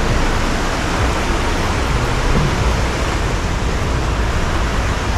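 Steady rushing road and wind noise of a moving car, with a low rumble underneath.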